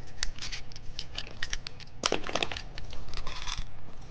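Plastic candy packaging crinkling and tearing open in a run of sharp crackles, with two denser bursts of rustling about two seconds in and a little after three seconds.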